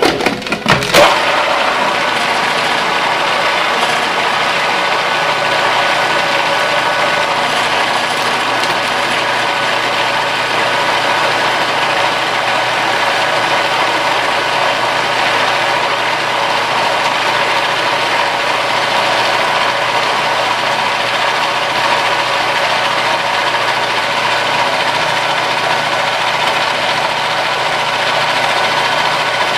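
A few clicks, then a food processor's motor starts about a second in and runs steadily, its blade blending soft butter and fresh basil into basil butter.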